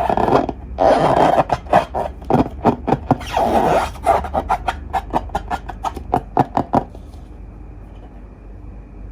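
Slime being squished and worked by hand: a rapid run of crackling clicks with wet rubbing in between. It stops about seven seconds in, leaving a faint steady background.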